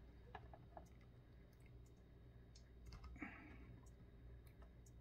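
Near silence with a few faint, sharp clicks of small plastic figure parts being handled as a swappable hand is pressed onto an action figure's arm.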